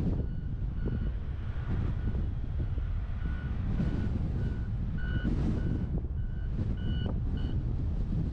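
A vehicle's reversing alarm beeping at an even pace, a little under two beeps a second, stopping near the end, over a steady low rumble of wind on the microphone.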